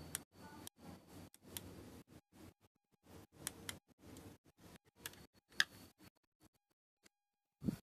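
Irregular clicking and short rattling bursts from a small wooden remote-control road roller model, with a sharp click about five and a half seconds in and a low thump near the end.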